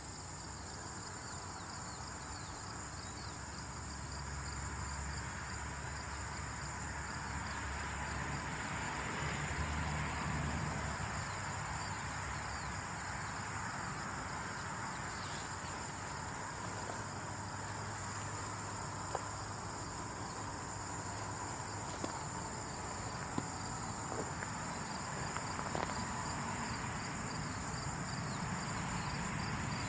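Insects chirring steadily: a continuous high buzz with a fast, even pulsing chirp beneath it, over a low rumbling hiss and a few faint ticks.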